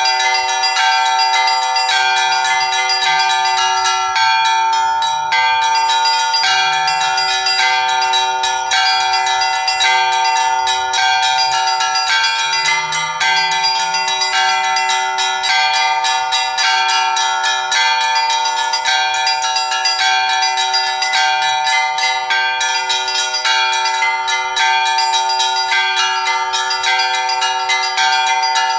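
Russian Orthodox church bells ringing in a continuous peal: small bells struck in a rapid, dense pattern over the steady ring of larger bells.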